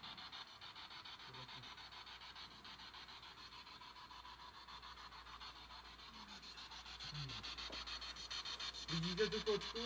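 Steady static hiss chopped by a fast, even flutter, like a spirit box scanning through radio stations; the investigators caption a word in it as the name "Kuba". A short voice-like sound comes near the end.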